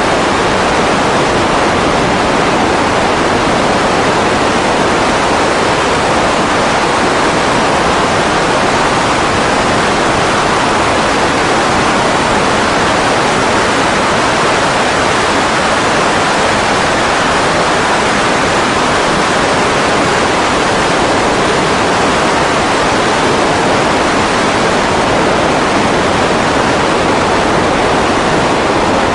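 Grumman Ag Cat seaplane's engine and propeller wash, heard as a steady, loud rushing noise with no distinct engine beat.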